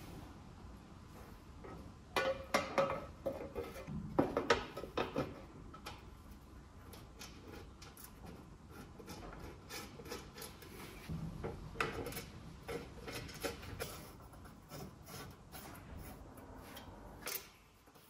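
Hand work on metal parts: the painted sheet-metal grass deflector of a Scott Bonnar Supercut cylinder mower scraping and clinking against the frame as it is set into place, loudest in two flurries a few seconds in. Then quieter, scattered clicks of bolts and nuts being fitted by hand.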